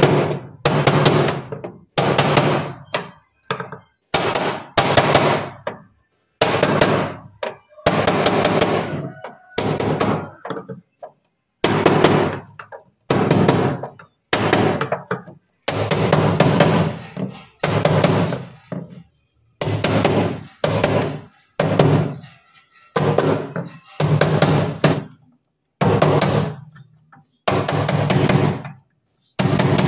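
A mallet striking a wooden stick held against the edge of a freezer evaporator plate, driving the plate into place: a long series of hard knocks, roughly one a second and sometimes in quick pairs, each with a short ringing tail.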